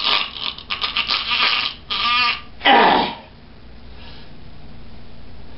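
A puppeteer's theatrical non-verbal vocal noises for a character's comic death throes: strained gasps and groans for about three seconds, with a wavering cry about two seconds in and a falling groan near three seconds. After that only a steady low hiss remains.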